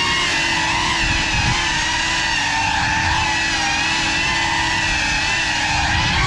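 FPV quadcopter's electric motors and propellers whining, recorded from the GoPro on board. The pitch holds nearly steady with slight wavers, as the throttle is kept even.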